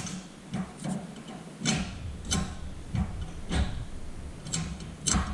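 Gear shifter being worked through the gates of a G56 manual transmission, giving a string of sharp clicks and knocks, about two a second, with a low rumble from about two seconds in.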